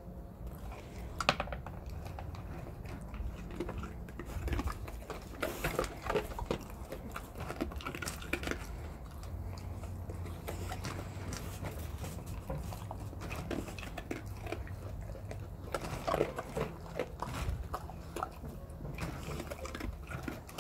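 Dogs chewing and crunching small treats close up: irregular crunches and clicks, with one sharp click about a second in.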